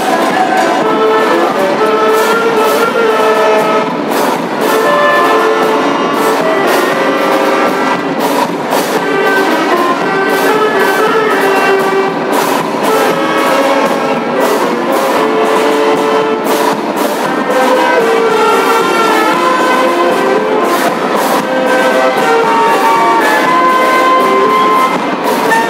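Marching band playing: brass and saxophones carry a melody over a steady beat of drum and cymbal strikes.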